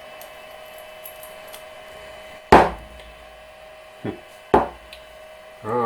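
Three sharp knocks of metal being handled at a lathe chuck, the loudest about two and a half seconds in and two closer together near the end, over a steady faint hum.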